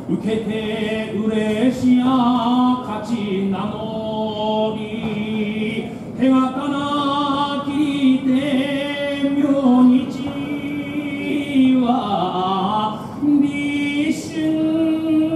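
A former sumo wrestler singing sumo jinku solo without accompaniment. He holds long drawn-out notes that waver and slide from one pitch to the next.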